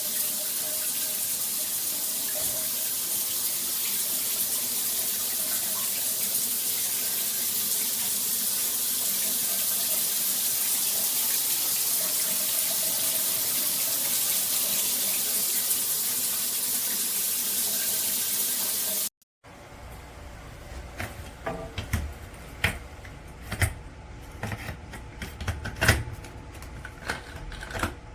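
Water spraying steadily from a shower head, a loud, even hiss. About nineteen seconds in, it cuts off abruptly and gives way to scattered clicks and knocks.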